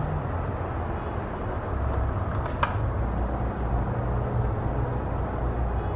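A steady low hum throughout, with motor oil being poured from a plastic jug into a pickup's engine oil filler, and a single short click about two and a half seconds in.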